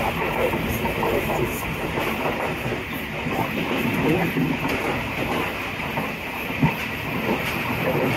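Tezgam express train running along the track, heard from its coach: a steady rumble of wheels on rails with scattered light clicks, and one sharp knock about six and a half seconds in.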